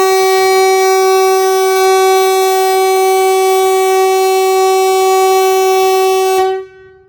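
Kockums Tyfon compressed-air warning horn ("Hesa Fredrik") sounding one loud, steady, unwavering blast at close range for the test of Sweden's outdoor public warning signal (VMA). It cuts off about six and a half seconds in, leaving a faint tone at the same pitch from more distant horns.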